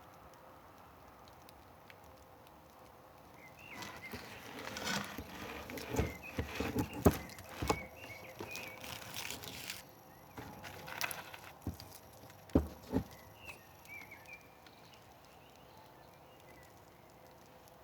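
Wood campfire crackling: a low hiss, then from about four seconds in a spell of irregular snapping and popping that dies back down near the end, with a few sharp loud pops in the middle.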